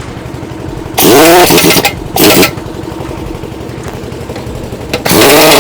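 A heavy impact wrench tightening wheel nuts in three loud bursts: one about a second in, a shorter one just after, and another near the end. Each burst rises quickly in pitch, then settles. An engine runs steadily underneath.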